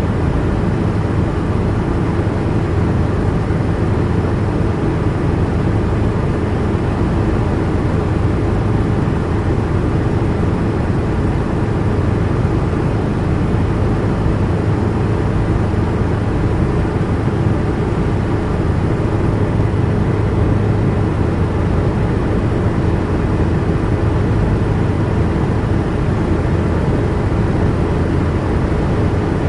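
Helicopter in flight heard from inside the cabin: a loud, steady low drone of engine and rotor, unchanging throughout.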